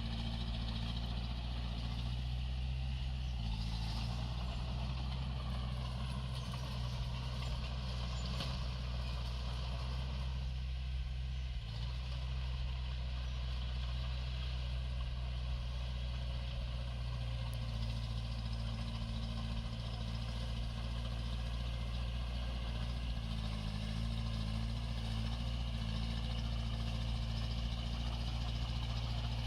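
Heavy-equipment diesel engine running steadily, with a higher whine over the engine note that dips in pitch about six seconds in.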